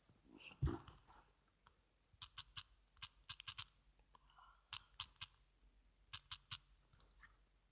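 A dull thump just under a second in, then keyboard typing: sharp clicks in quick runs of three to five keystrokes, with short pauses between the runs.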